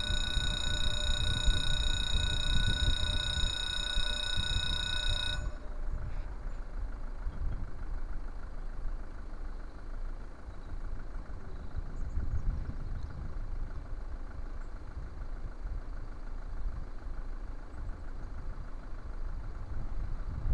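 Level-crossing warning bell ringing as a steady multi-tone signal while the barrier lowers, cutting off suddenly about five seconds in. After that there is a low rumble of wind and road traffic.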